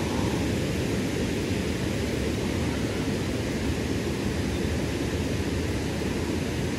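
Steady rushing of a fast-flowing river over shallow riffles, an even noise with no distinct events.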